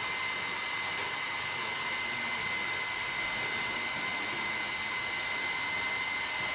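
Leister Sonora S1 hot air hand tool blowing steadily: an even rush of air with a thin, high, steady whine.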